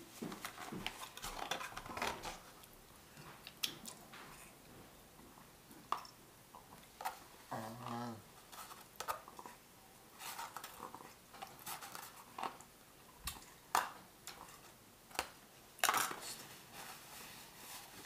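Cutlery clinking and tapping against a dish, irregular light clicks scattered throughout.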